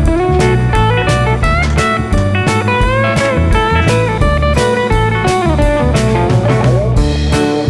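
Background blues music: electric guitar with bending notes over a bass line and a steady drum beat.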